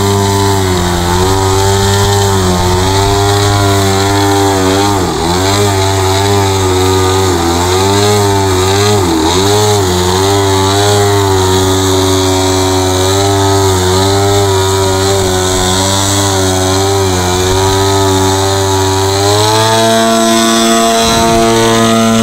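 DLE-55 single-cylinder two-stroke petrol engine of a large radio-controlled Sbach 342 aerobatic plane, held at hovering throttle with small dips and rises in pitch as the plane is balanced on its propeller. Near the end it revs up to a higher, steady pitch as the plane climbs away.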